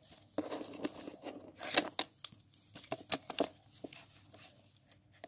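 Paper rustling and crinkling, with irregular sharp clicks and taps as a ruler and pencil are handled on the sheet; busiest in the first few seconds, then fainter.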